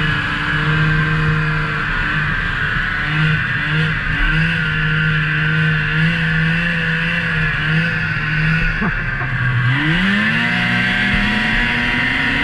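Snowmobile engine running at speed under the rider, its pitch wavering slightly, with the rush of the track and wind. About nine seconds in, the engine drops off briefly, then revs back up in a steady rising pitch as the machine accelerates.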